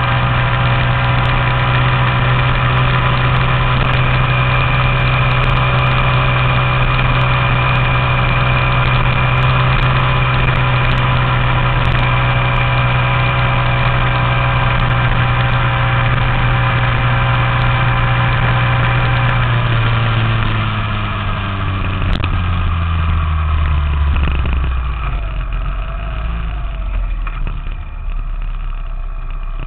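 Honda Z50 minibike's 88cc single-cylinder four-stroke with an aftermarket exhaust, running at steady high revs at speed. About two-thirds of the way through the revs fall away over several seconds as the bike slows, and the engine runs at low revs near the end.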